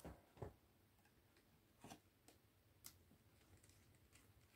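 Faint, sparse clicks of small screws and plastic drone parts being handled, about four light ticks spread over a few seconds.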